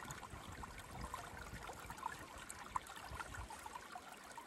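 Small creek running between snow banks and thin ice: a steady, faint rush of water with small bubbling notes.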